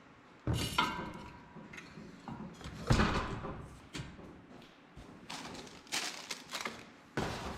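Fan parts and their packaging being handled during unboxing, with a few separate knocks and thumps as pieces are lifted and set down.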